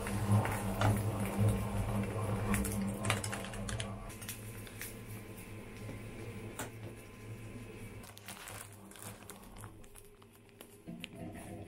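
A wooden spatula scraping and tapping in a non-stick frying pan of cooking egg, over a steady low electrical hum that stops about four seconds in. After that come quieter scattered clicks and ticks as the hob's rotary knob is handled.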